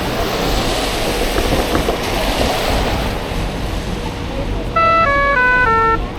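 Busy downtown street ambience with a steady rush of traffic and wind noise. Near the end a loud electronic signal starts: a quick run of stepped beeping tones, each note a different pitch, that then repeats.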